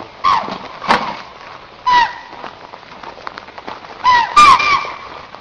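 A series of short animal calls, each a single note dropping in pitch, coming at uneven intervals with three in quick succession near the end, mixed with a couple of sharp clicks.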